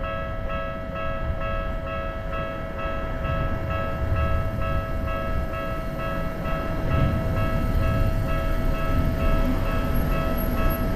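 Japanese railway level-crossing alarm bell ringing in a rapid, evenly repeating electronic ding, over the low rumble of a train that grows louder in the second half.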